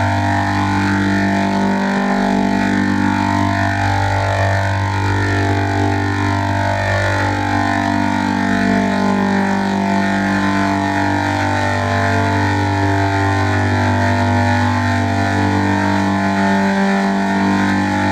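A steady, loud droning sound effect, a low hum held constant under layered overtones that slowly sweep up and down and cross one another.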